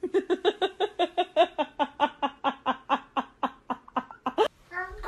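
A person laughing in a fast run of short, pitched giggles, about five a second, that stops abruptly about four and a half seconds in. A falling, wailing cry starts right at the end.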